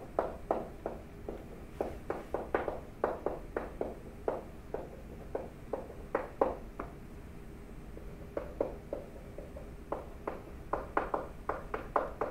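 Pen strokes tapping on a writing surface as words are handwritten: an irregular run of short, light taps, two or three a second, with a couple of brief pauses.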